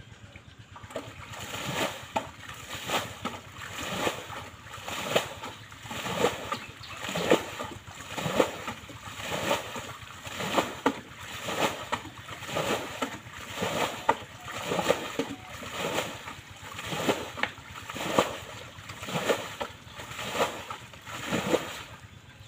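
Pond water being bailed by hand with a shallow round pan: a steady rhythm of scoop-and-splash about once a second as the water is thrown out, draining a pond corner to catch the fish.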